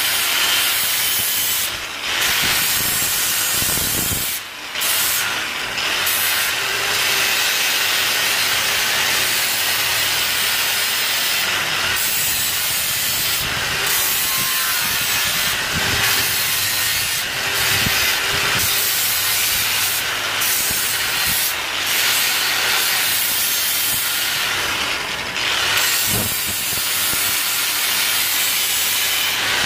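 Angle grinder with a sanding disc on a backing pad grinding rust off the steel jaw of a bench vise: a steady, high hiss of abrasive on metal over the running motor. A few brief dips in loudness as the disc eases off the metal.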